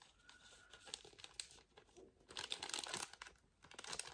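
Thin clear plastic bag crinkling in the hands as a card in its envelope is pushed into it, in irregular bursts that are loudest about two to three seconds in.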